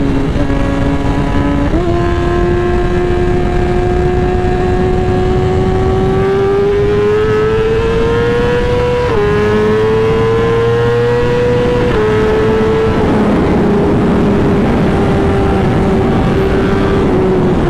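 BMW S1000RR sport motorcycle's inline-four engine under way. Its note steps up about two seconds in and climbs steadily, then drops sharply twice, about halfway through and again a few seconds later, as it shifts up a gear, and afterwards falls slowly as the throttle eases. Rushing wind noise runs underneath.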